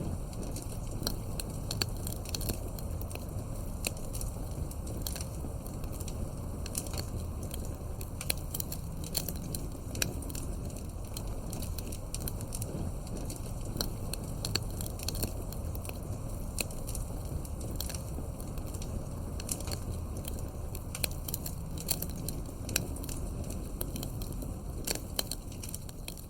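Wood fire burning in a fireplace, crackling steadily with frequent sharp pops over a low rumble of the flames.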